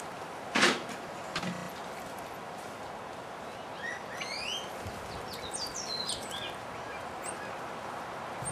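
A single thump about half a second in, then a run of short, high chirps rising and falling in pitch from about four seconds in until near the end.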